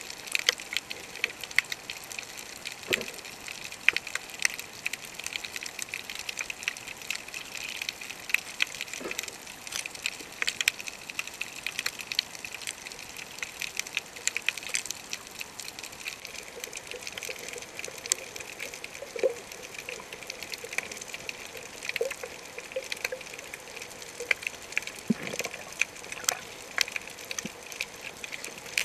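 Underwater sound on a coral reef: a dense, irregular crackle of sharp clicks, the typical snapping-shrimp crackle of a reef, over a steady hiss.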